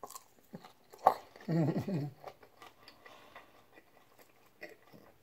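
Close-miked chewing of a mouthful of salad, with small wet mouth clicks throughout and a short hum from the eater about a second and a half in.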